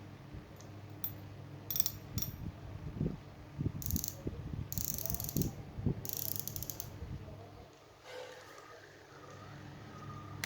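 Size 6000 fishing reel being cranked and handled, its gears and ratchet clicking and rattling in uneven bursts, busiest in the middle, while its smoothness is tested.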